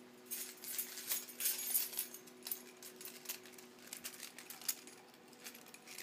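A bunch of keys jangling and clinking as a toddler shakes and handles them, in irregular bursts of sharp metallic jingles, heaviest in the first two seconds, with a faint steady hum underneath.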